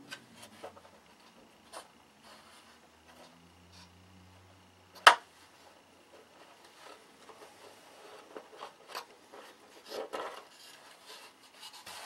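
Light clicks, taps and scraping of small metal parts and a hand tool being worked inside a balsa model-airplane wing while fitting a bellcrank mount. There is one sharp click about five seconds in and a short cluster of taps near the end.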